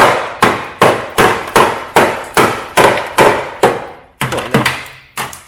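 Repeated hammer blows on the rusted steel body of a scrapped Mk2 Mazda MX5, about two a second, with a brief pause near the end followed by lighter strikes.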